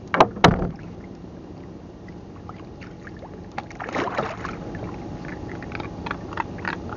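Two loud knocks just after the start, then splashing as a hooked fish is hauled up out of the water on a longline about four seconds in, followed by scattered light knocks and taps.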